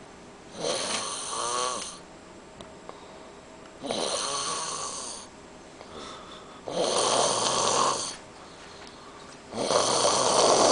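A man snoring in his sleep: four loud snores at a steady pace, about three seconds apart, each lasting a little over a second.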